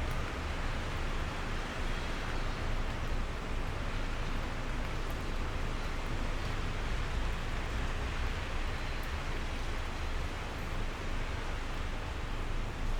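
Steady rain: an even hiss with no separate drops standing out.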